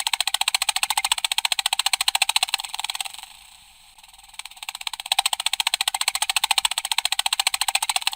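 Computer keyboard clicking fast and evenly, in two long runs of rapid keystrokes. It dies down about three seconds in and picks up again about a second later.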